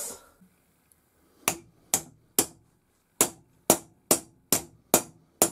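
Hammer striking a galvanised steel fencing bracket clamped in a small vise to straighten its splayed sides: about nine sharp metallic strikes, roughly two a second, starting about a second and a half in.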